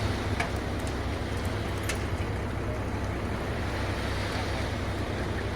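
An engine running steadily: a constant low rumble with a few faint clicks over it.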